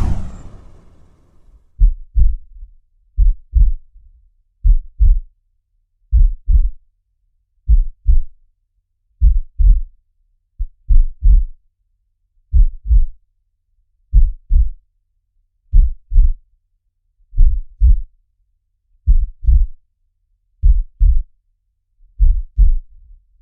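Heartbeat sound effect: pairs of low thumps (lub-dub) repeating evenly about once every second and a half. It comes after a loud boom at the very start that dies away over about a second.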